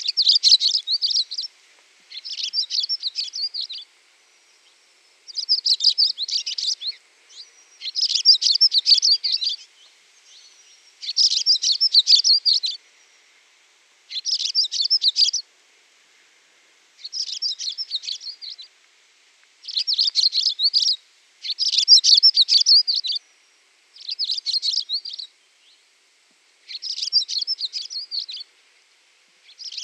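Songbird song: about a dozen short, high-pitched twittering phrases, each a second or two long, with pauses of about a second between them.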